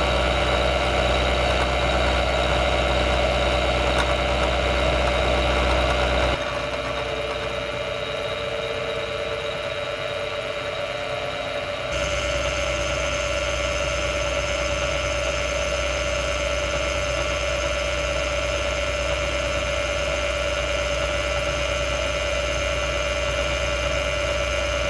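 Bridgeport vertical milling machine running with an end mill cutting the side of a steel railroad rail: a half-inch roughing end mill first, then a carbide flat end mill on the finishing pass. It is a steady machine sound that changes abruptly twice, about six and twelve seconds in, getting quieter and then louder with a steady high whine.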